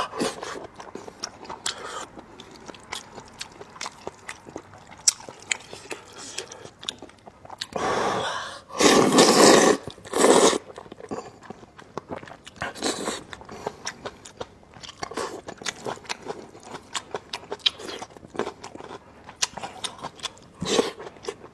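Close-miked chewing and wet mouth clicks of someone eating spicy rice noodles with fatty beef intestine. About eight to ten seconds in, a few seconds of loud slurping as noodles are drawn in.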